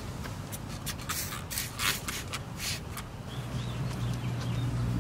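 A trigger spray bottle of spray wax squirting about six times against a boat's gelcoat hull, then a cloth rubbing the wax over the surface. A low steady hum comes in a little past halfway.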